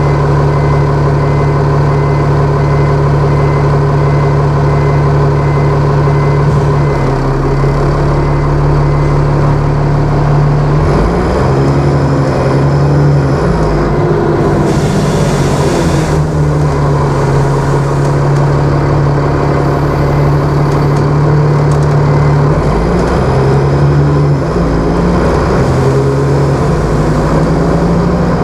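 Dennis Trident double-decker bus's diesel engine heard from inside the bus, running steadily. Its note steps up and down several times as the bus moves along. A short hiss comes about halfway through.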